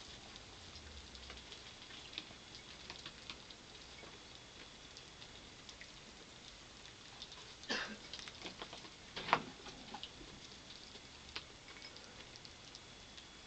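Pet rats eating peas and fishing them from a shallow water bowl: a patter of small clicks throughout, with two louder sharp noises about a second and a half apart near the middle.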